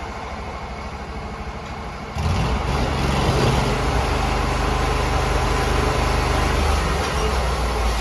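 Sawmill engine running steadily, getting suddenly louder a little over two seconds in and staying at the higher level.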